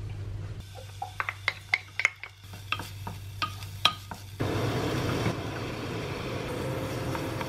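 Green onion and garlic frying in sesame oil in an earthenware ttukbaegi pot, stirred with a wooden spoon that clicks and taps against the pot several times. About four and a half seconds in, a louder steady rushing hiss sets in as cubed pork is scraped into the pot.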